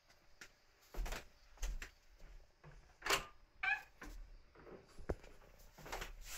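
Footsteps and knocks on wooden boards, and a heavy wooden door being opened, with two short squeaky creaks from its hinges around the middle and a sharp latch click near the end.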